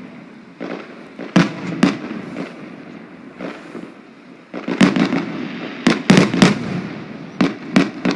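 Aerial firework shells bursting at a display: about a dozen sharp bangs, some alone and some in quick volleys of two or three, each trailing off in a rumbling echo over a steady crackle.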